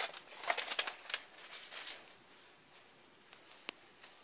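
Paper pages of a spiral notebook being turned and handled: a run of rustles and crackles over the first two seconds, then a few separate sharp clicks.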